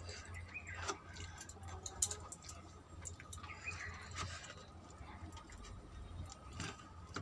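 Close-up sounds of a person eating rice by hand: chewing with frequent sharp lip smacks and mouth clicks, and fingers working rice on a plastic plate, over a low steady hum.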